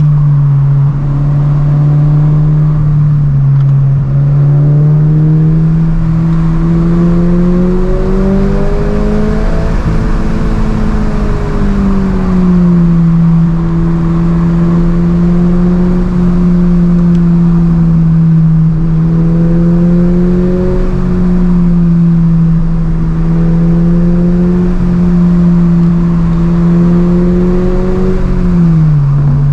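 Subaru BRZ's flat-four engine running as the car drives, its pitch holding fairly steady with slow rises and falls, climbing about a third of the way in, then dropping sharply near the end.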